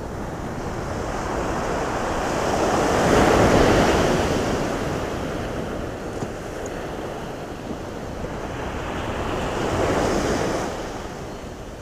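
Ocean surf: waves breaking and washing up the sand, swelling loudest twice, a few seconds in and again near the end, with wind buffeting the microphone.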